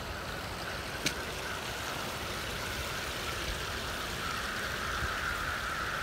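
Steady splashing of water from a swimming pool's deck jets arcing into the pool, with a single light click about a second in.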